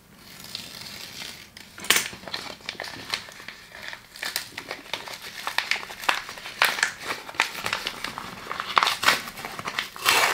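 Small padded paper mailer being torn open and crinkled by hand, with its bubble-wrap lining handled: irregular paper crackling broken by several sharp louder rips.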